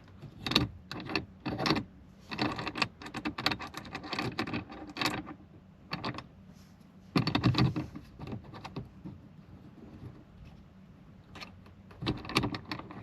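Hard plastic mounting parts being handled and fitted into the truck's dash: a run of irregular clicks, rattles and knocks, busiest in the first five seconds and loudest about seven to eight seconds in, then quieter before a few more clicks near the end.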